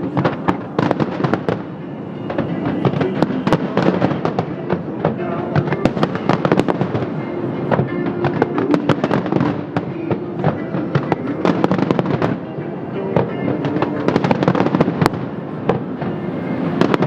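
Fireworks bursting in rapid succession, a dense run of bangs and crackles, over music played along with the show.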